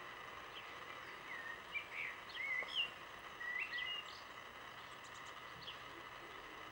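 A small bird singing: a phrase of short chirps and gliding notes from about one to four seconds in, with fainter single chirps before and after, over a steady outdoor hiss.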